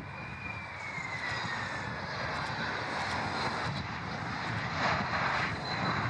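Boeing 737 Classic jet airliner landing: its engines' whine falls in pitch over the first couple of seconds as thrust comes off around touchdown, then the engine noise swells again near the end. Wind rumbles on the microphone underneath.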